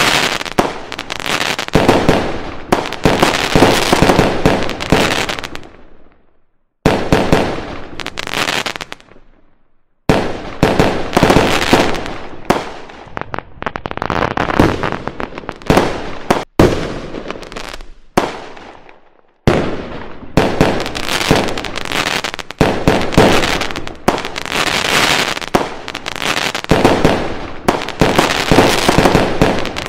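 Fireworks going off: dense runs of bangs and crackling, each run starting abruptly and dying away, with brief silences about 7, 10 and 19 seconds in.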